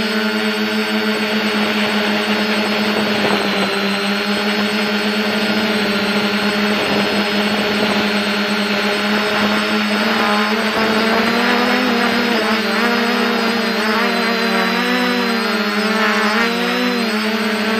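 DJI F450 quadcopter's electric motors and propellers running in flight with a steady buzzing hum; about halfway through the pitch starts to waver up and down as the motor speeds shift. Motor 1 has a dodgy bearing, which the owner says makes the craft vibrate.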